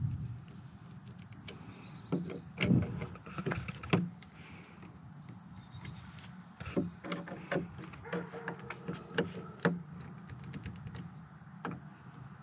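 Hand screwdriver driving screws into the plastic housing of a keyless RV lock handle on a cargo door, with scattered clicks and light knocks of the tool and hardware.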